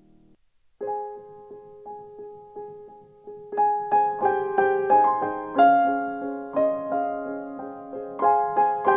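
Background piano music. A piece starts about a second in with evenly repeated notes and grows fuller with chords a few seconds later.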